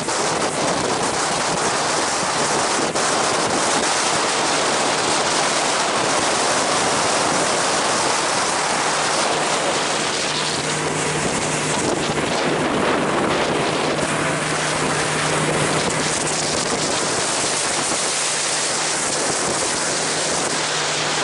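Small motorboat running at speed through choppy sea: a steady rush of wind buffeting the microphone and water spraying off the hull. The engine's low, steady drone shows through more clearly about halfway through.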